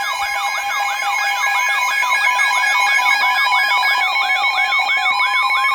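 Several weather radios sounding their alert alarms at once: a siren-like tone sweeping up and down about three times a second over steady, interrupted beeps. It is the alarm for an incoming National Weather Service warning.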